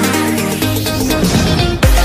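Electronic dance music from a channel intro: steady synth notes, with heavy kick drum beats coming in near the end at about two a second.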